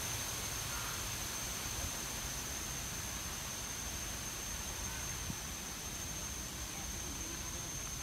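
Steady outdoor ambience: an even hiss with a constant high-pitched tone running through it, and a few faint short chirps.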